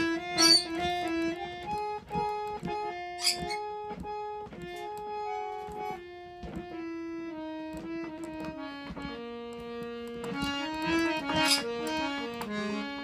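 Harmonium playing a slow melody of held, reedy notes, sometimes two or three sounding together, with short clicks and knocks between the notes.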